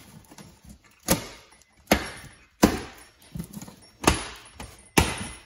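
Plastic packing straps around a cardboard box being cut and pulled loose: five sharp snaps, each fading quickly, about a second apart.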